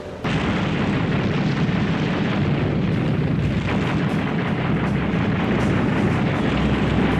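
A loud, steady, low rumbling noise on an old film soundtrack, starting abruptly a moment in and running on without a break.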